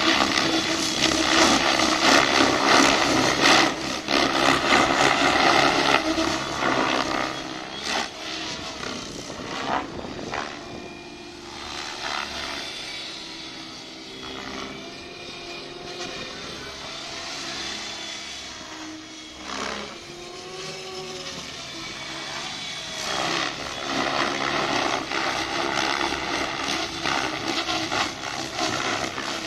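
Radio-controlled helicopter in flight: its motor and rotor whine rising and falling in pitch as it manoeuvres. It is loud at first, fades for a stretch in the middle as it flies farther off, and grows loud again near the end.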